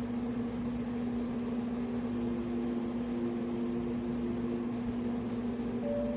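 Ultrasonic cool-mist humidifier running with a steady hum and fan hiss; a second pitch joins the hum in the middle and a higher one near the end.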